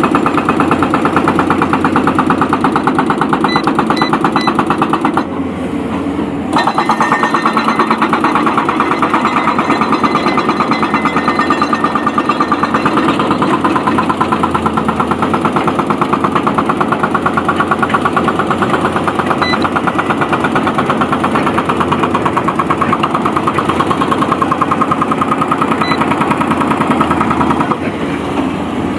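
Excavator's diesel engine running steadily with a rapid, even chugging. It eases off briefly about five seconds in and again near the end.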